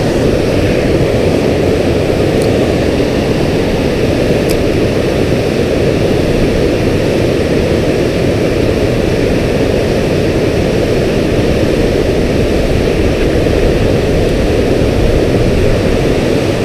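Water pouring over a dam spillway: a steady rushing noise, heaviest in the low range, unbroken throughout.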